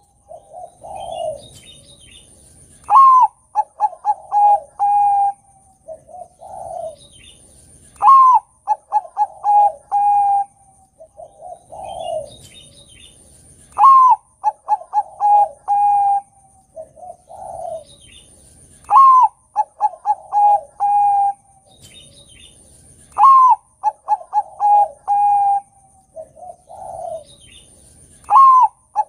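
Zebra dove of the Bangkok perkutut type singing its cooing song over and over, about every five seconds. Each phrase opens with a sharp rising note, runs into a quick series of short notes, holds a longer note and falls away on lower coos.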